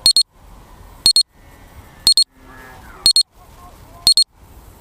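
Electronic beeper sounding a short, high double pip exactly once a second, like an alarm, over faint background hiss.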